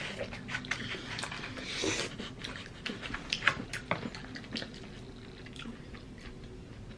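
Close-up eating sounds: wet chewing and small mouth clicks from a mouthful of wet burrito, busiest in the first five seconds and thinning out after.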